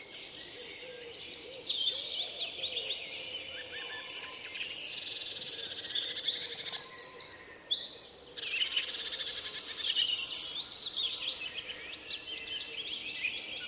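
Several songbirds singing and chirping over one another, with quick whistled notes and fast trills, louder in the middle.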